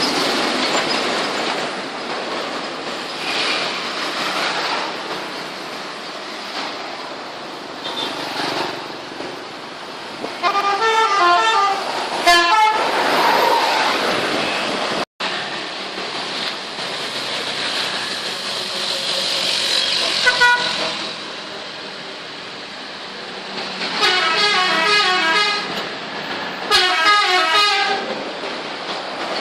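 Tour buses' 'telolet' musical air horns play short melodies of stepped notes several times: once about ten seconds in, briefly around twenty seconds, and twice near the end. Steady traffic noise runs underneath.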